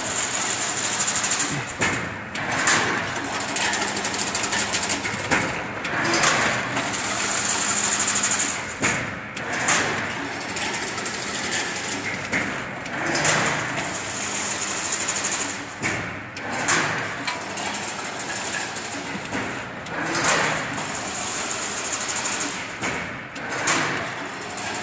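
Chain link fence weaving machine running, its mechanism clattering in a repeating cycle that swells about every three and a half seconds over a steady motor hum and whine.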